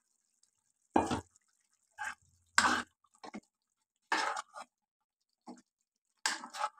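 Metal ladle stirring thick spinach gravy in a kadhai: about eight short, wet scrapes and plops, irregularly spaced, with silence in between.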